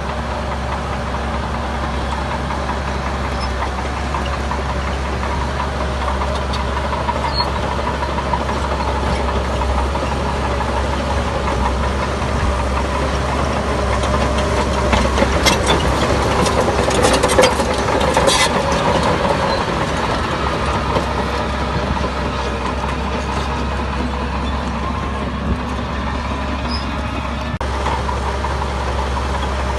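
Heavy diesel engine of construction machinery running steadily, with a cluster of metallic clanks and rattles a little past halfway that is the loudest part.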